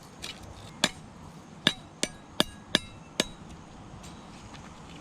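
A blade striking a freshly cut bamboo rod as its small edges are trimmed off: about six sharp knocks over three seconds, each with a brief ring, then they stop.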